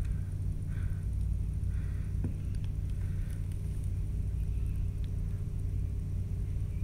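Steady low mechanical hum and rumble, like running machinery such as tank filtration or ventilation, with a faint click about two seconds in.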